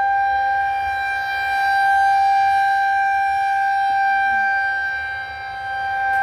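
Federal Signal 2001-130 outdoor warning siren sounding one steady tone during a test. Its loudness swells and fades slowly, dipping a little about five seconds in.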